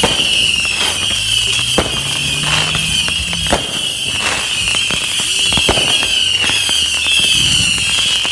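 Fireworks going off, a string of sharp bangs and pops at uneven intervals over a continuous high warbling whistle.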